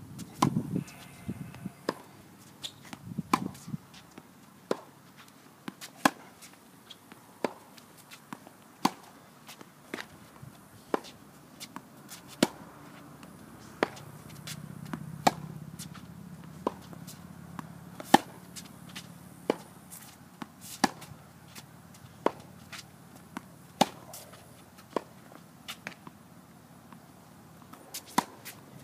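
Tennis balls struck by rackets and bouncing on a hard court in a steady rally, a run of sharp pops about one to two a second.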